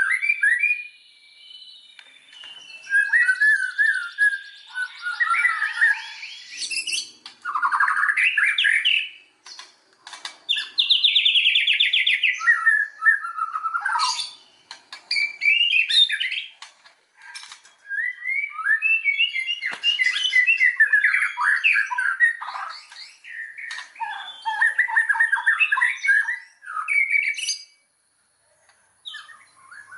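White-rumped shama (murai batu) singing a varied run of loud whistled and chattering phrases, some sliding down in pitch, broken by short pauses.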